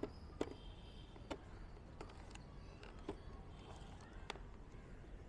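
Light clicks and knocks, about six spread over a few seconds, from a plastic motorcycle helmet and its parts being handled.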